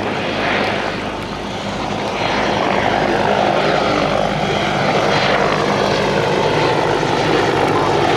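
Westland Whirlwind HAR.10 helicopter in flight, its main rotor and Gnome turboshaft engine making a steady hum, getting louder about two and a half seconds in.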